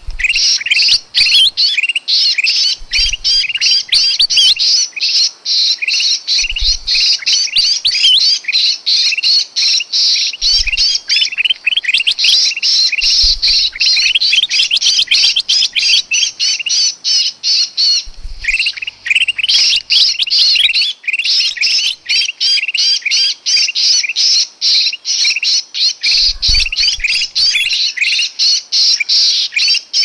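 Ruby-throated bulbul (kutilang emas) giving a dense, unbroken stream of rapid, shrill distress calls of the kind a bulbul makes when pinned or held, a recording used as a lure for small birds. There are a few faint low thumps under the calls.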